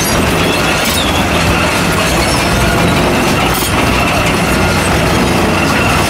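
Xcentric Ripper JGXR40, a hydraulically driven eccentric ripper on an excavator, working limestone rock: a loud, continuous metallic rattling and grinding with a thin high whine running through it.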